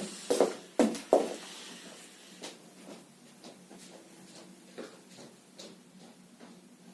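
A series of sharp knocks and taps: three or four loud ones in the first second or so, then fainter ones at irregular intervals, over a low steady hum.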